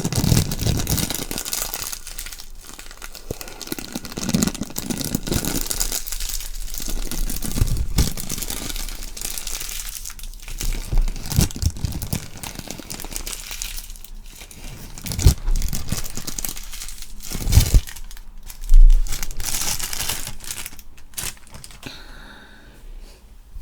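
Close-up crinkling and crumpling, irregular and continuous, with a few louder thuds near the end.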